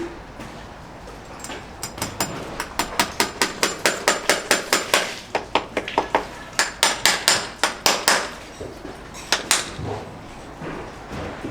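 Farrier's hammer striking metal in fast runs of sharp taps, about five a second, in two long runs with a short pause between and a couple more strikes near the end.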